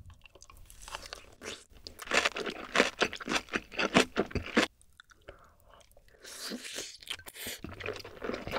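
Close-miked chewing of a mouthful of soy-sauce egg rice with pork belly and kimchi, wet and crunchy. The chewing is loudest and densest in the first half, pauses briefly about five seconds in, then starts again.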